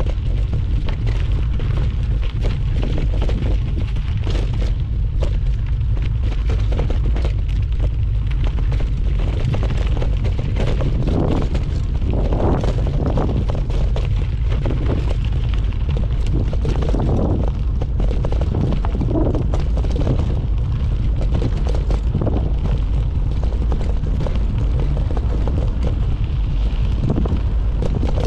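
Wind buffeting the microphone as a mountain bike rides downhill, a constant heavy rumble, with many quick rattles and knocks from the bike jolting over the trail.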